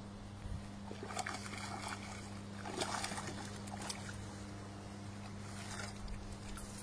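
Hooked trout thrashing and splashing at the water's surface as it is played to the bank and scooped into a landing net, in irregular splashes, loudest about a second to three seconds in. A steady low hum runs underneath.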